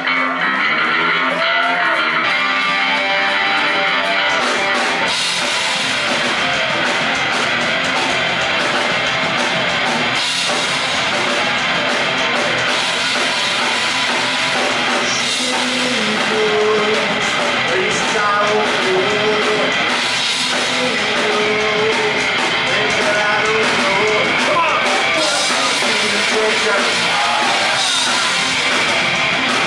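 A rock band playing loudly and live, with electric guitars and drums. A man sings over the band at times.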